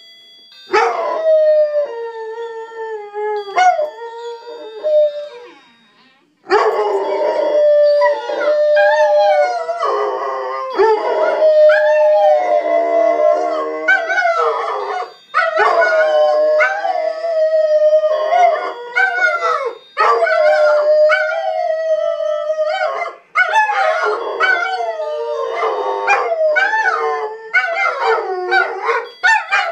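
Two dogs howling together in long, wavering howls that rise and fall in pitch, with short sharp yips in between. The howling stops briefly about six seconds in, then resumes and goes on with only short breaks.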